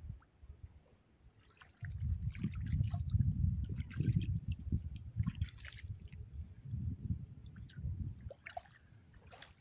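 Hands splashing and sloshing in shallow lake water at the shore, an irregular watery churning that starts about two seconds in and stops about a second before the end.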